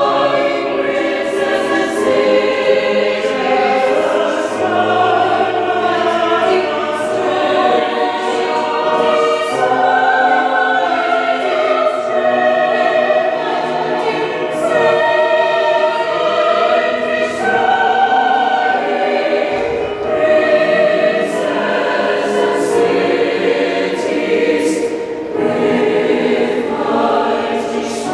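Mixed choir of men's and women's voices singing together in several parts, continuously and at a steady level.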